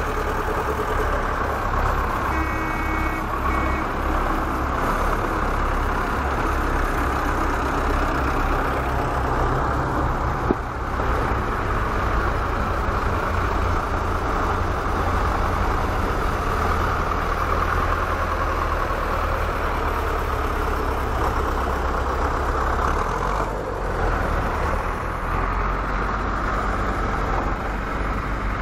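Vintage tractors driving past one after another with their diesel engines running in a steady low throb; an orange Zetor passes about ten seconds in.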